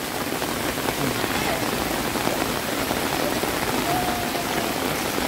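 Heavy rain falling steadily, an even dense hiss of drops on hard surfaces, with faint voices in the background.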